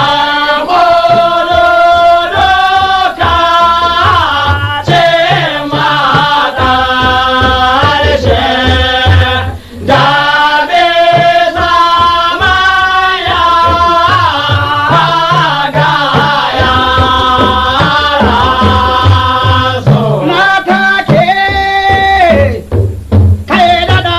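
Hausa song: a solo voice singing over drums, with a short break about ten seconds in.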